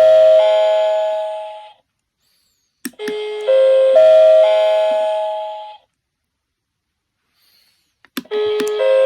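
Hanjyou family-restaurant call-button chime, pressed repeatedly: each press gives a click and then a chime of rising notes that rings and fades over about three seconds. One chime's tail fades out at the start, a full chime sounds about 3 seconds in, and another begins near the end.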